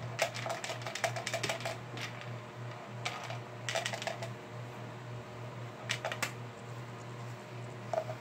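Bursts of quick light clicking and tapping from small hard pieces being handled and fiddled with in the hands, over a steady low hum.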